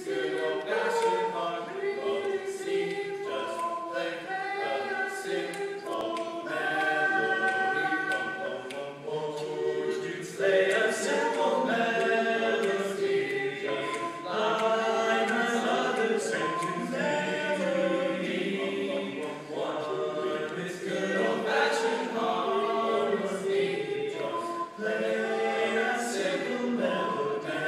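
A small ensemble of young male voices singing unaccompanied in barbershop harmony, holding and changing close chords.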